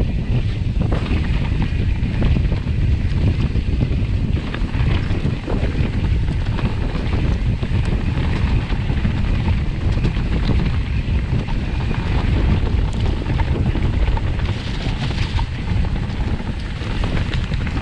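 Wind buffeting the microphone of a handlebar-mounted camera on a mountain bike riding down a dirt trail, over a steady rumble of tyres and frame with frequent small knocks and rattles.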